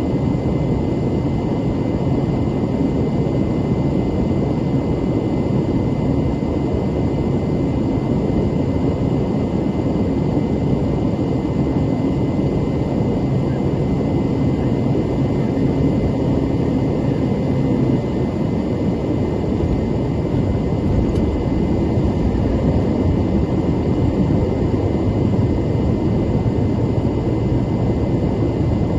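Beechcraft King Air 250's twin turboprop engines and airflow, a steady drone heard from inside the cockpit, with a few faint steady tones running through it.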